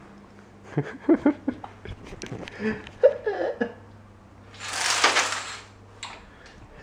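Newborn baby hiccupping with small grunts, a string of short catches in the first few seconds, then a brief rustling swish about five seconds in.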